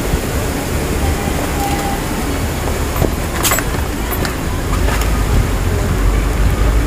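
Steady rush of muddy floodwater, with a few sharp clicks near the middle. From about two-thirds of the way in, a deeper steady rumble of a car driving comes up beneath it.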